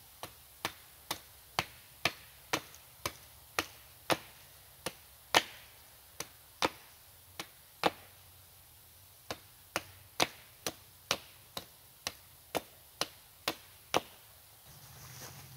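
Repeated sharp chops of a hand tool into wood, about two a second. There is one short pause about eight seconds in.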